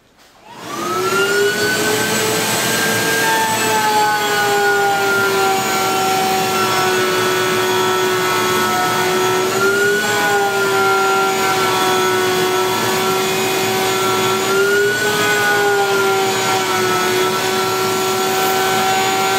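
Router in a router table starting up and running at full speed, its bit cutting a rabbet along the edge of a plywood panel: a steady high whine that wavers slightly in pitch a couple of times.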